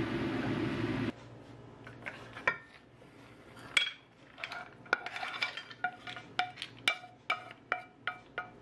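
Clam shells clinking and a spatula scraping and tapping as stir-fried clams and rice noodles are slid from a nonstick pan onto a ceramic plate: a run of short, sharp clinks and knocks. Before that, a steady rushing noise from the stove cuts off about a second in.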